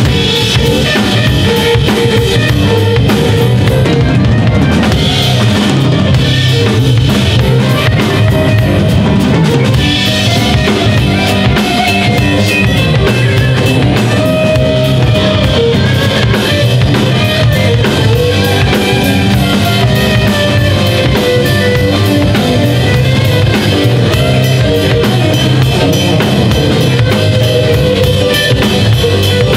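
Live band playing an instrumental passage: drum kit, electric bass, electric guitar and stage piano together, the drums prominent throughout.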